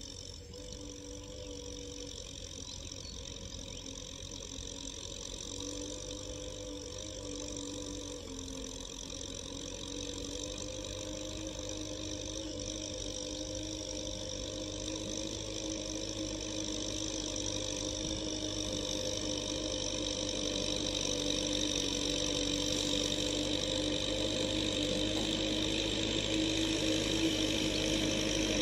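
Kubota tractor's diesel engine running steadily under load while pulling a plough, growing louder as the tractor comes closer.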